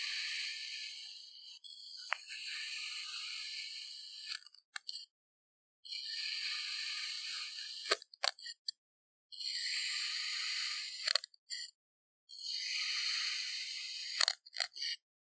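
A large knife slicing down through a block of purple kinetic sand, five cuts in a row, each a crunchy, gritty hiss lasting a couple of seconds. Between some of the cuts come a few sharp clicks.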